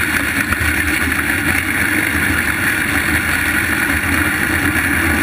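Onboard engine of a small dirt-track race car running steadily, heard close up with wind and rumble over the microphone.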